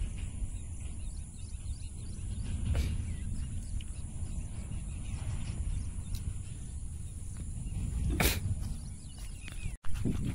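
Outdoor ambience dominated by low, uneven wind rumble on the microphone, with one sharp click about eight seconds in.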